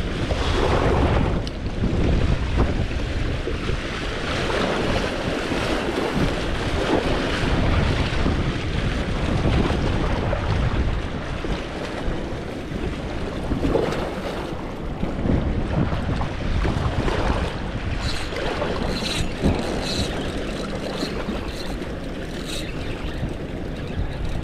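Wind buffeting the microphone over a steady rush of water, with a few short, sharp clicks near the end.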